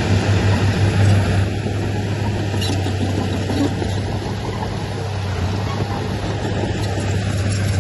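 Heavy diesel earthmoving machinery running steadily, with a deep, even engine hum.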